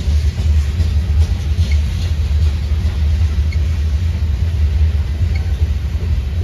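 Covered hopper cars of a freight sand train rolling past, a steady low rumble with a faint click about every two seconds.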